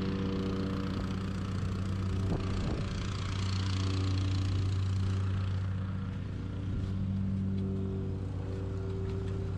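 An engine running steadily, with a hiss that swells a few seconds in and eases off again.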